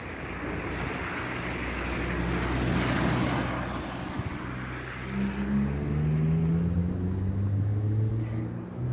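A rushing hiss swells and fades in the first half. After that, a nearby motor vehicle's engine hum becomes the loudest sound, its pitch shifting slightly as it runs.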